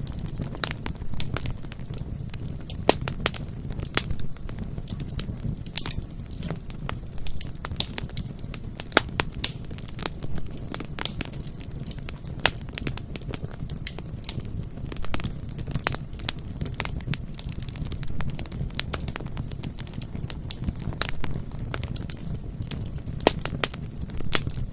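Bonfire burning: a steady low rumble of flames with frequent irregular pops and crackles of burning wood.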